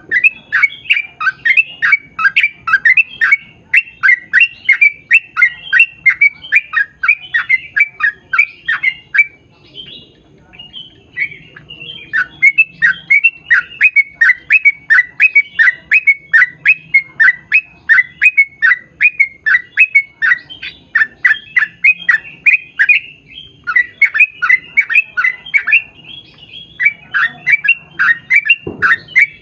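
Yellow-vented bulbul (trucukan) singing a long, fast run of rattling downward-sweeping chirps, about four to five a second, broken by two short pauses.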